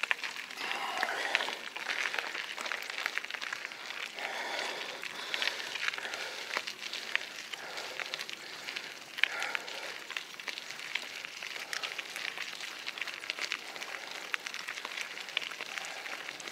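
Rocky Mountain Instinct mountain bike rolling along a dirt trail: tyres crunching and crackling over the ground, with many sharp rattling clicks throughout.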